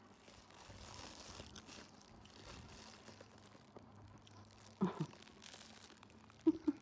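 Faint crinkling and rustling of a thin plastic bag wrapped around a piece of fried bread as it is handled. Two short pitched squeaks come about five seconds in and two more near the end.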